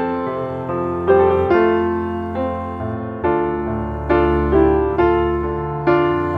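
Background music: slow piano playing, each chord struck and left to fade before the next.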